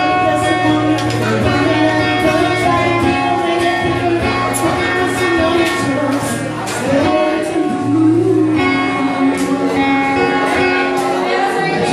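Live solo cutaway acoustic-electric guitar, strummed and picked chords with ringing sustained notes.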